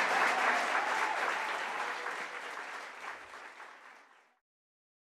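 Audience applauding, fading steadily and ending about four seconds in.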